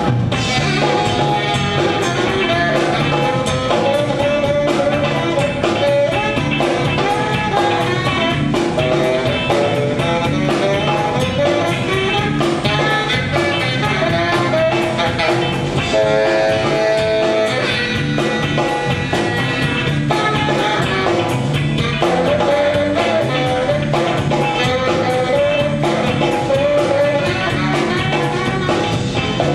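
Live band playing a steady-beat number with drums and guitar.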